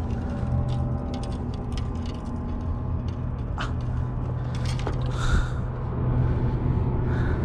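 A steady low engine hum, with small clicks and rustles as a freshly caught fish is handled.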